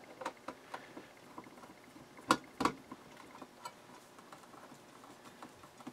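Small irregular clicks and ticks of a screwdriver and screws on the sheet-metal case of a PC power supply being opened, with two sharper metallic clicks close together a little over two seconds in.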